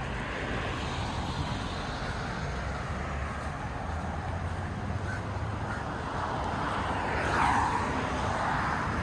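Steady road-traffic noise, swelling louder for a moment about seven and a half seconds in as a vehicle goes by.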